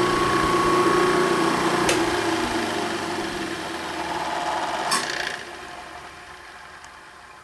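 A motor-driven machine running with a steady hum, with two sharp clicks about two and five seconds in, then dying away.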